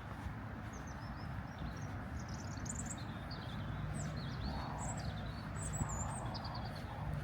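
Small songbirds chirping and twittering, many short high notes in quick runs, over a steady low background rumble.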